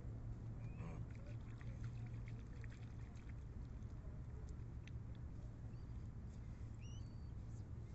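Seawater lapping and trickling among shore rocks over a steady low hum, with a few faint high chirps about a second in and again near the end.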